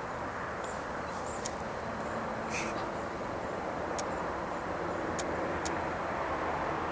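Steady outdoor background noise, an even hiss, with a few faint, short, high clicks scattered through it.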